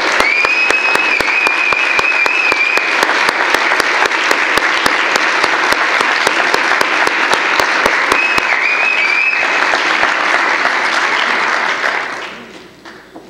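Audience applauding, a dense steady clapping that dies away near the end. A high held sound stands out above the clapping twice, once near the start for a few seconds and again briefly later.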